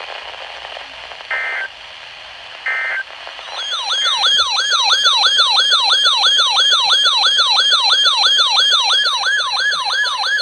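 Two short warbling data bursts of NOAA Weather Radio's digital (SAME/EAS) tones, marking the end of one alert message. They are followed by a weather alert radio's electronic siren alarm, yelping with fast repeated falling sweeps, nearly three a second. A steady attention tone starts under it at the very end.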